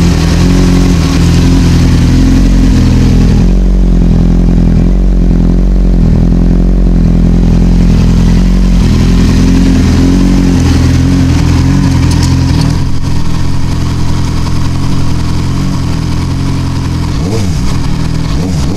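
Triumph TT600's inline-four engine running through an S.P. Engineering carbon end can with the removable baffle out. It idles steadily and loud, then gets a couple of quick throttle blips near the end.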